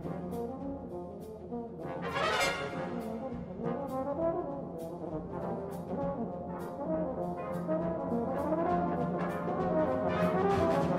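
Brass band playing, with a solo euphonium carrying the melody over the band's accompaniment and light percussion taps. The music grows gradually louder.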